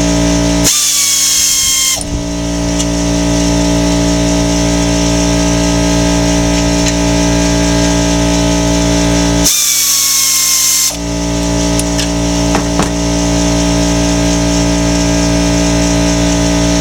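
A handheld power tool runs in two bursts of about a second and a half each, its whine dropping in pitch during each run. A steady mechanical hum runs under it throughout, with a few light clicks near the end.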